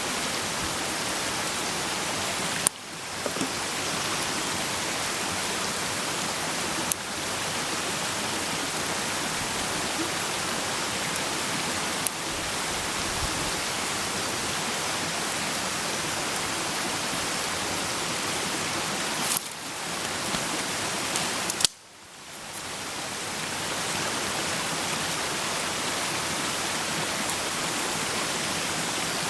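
Food sizzling in a pan over a campfire: a steady hiss with a few sharp pops, the loudest about 22 seconds in.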